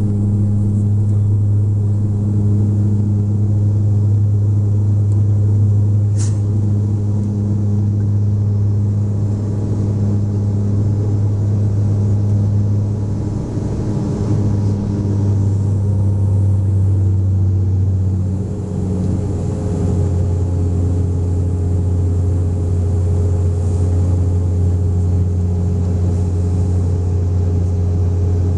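Bombardier Dash 8 Q400's six-bladed propellers heard from inside the cabin during the climb: a loud, steady, low droning hum with a strong, even tone. The pitch steps down slightly twice, about halfway through and again about two-thirds in, and a single short click sounds about six seconds in.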